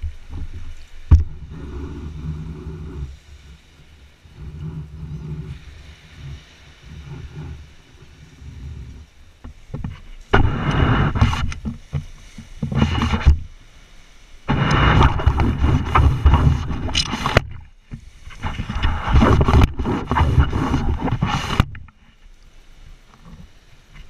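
Ghost shrimp pump being worked in wet sand, pulling up sand and water. There is a sharp knock about a second in, two quieter stretches of low rumbling, then three loud rough bouts of noise of about three seconds each.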